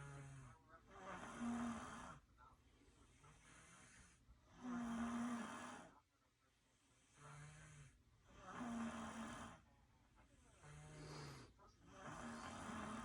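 Snoring in a steady rhythm: four loud rasping snores about three and a half seconds apart, with a shorter, lower-pitched snore between each pair.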